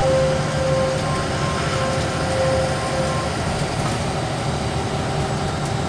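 Steady engine and road rumble heard inside the cab of a vehicle driving along a highway.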